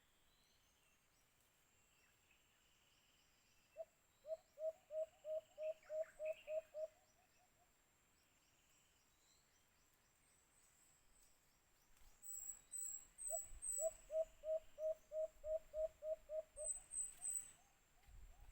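White-eared brown dove calling: a run of about a dozen low, evenly spaced hoots, some three to four a second, given twice, the second run near the end. Faint high chirps of small birds between the runs.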